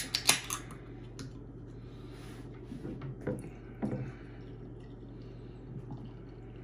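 Beer can tab cracked open with a few sharp clicks, then IPA poured from the can into a glass, glugging and splashing, with two louder glugs a little past the middle.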